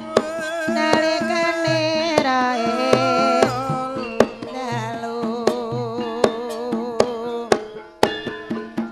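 Javanese gamelan music played live: a sustained melody with wide vibrato glides over the ensemble, punctuated by sharp drum strokes at an even beat.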